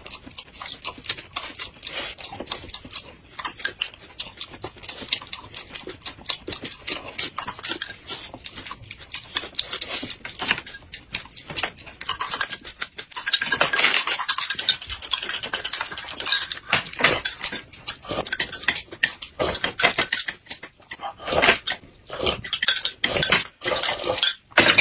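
Close-miked eating sounds: wet slurping and sucking from glass cups and chewing, with small clicks of chopsticks and dishes. The loudest, longest slurping comes about halfway through.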